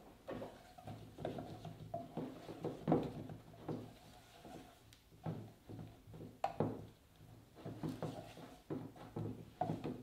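Metal spoon stirring melted chocolate in a small stainless-steel pot, with irregular scraping strokes and knocks against the pot's sides, a few of them sharper. This is the stir-through of the chocolate while it is being tempered.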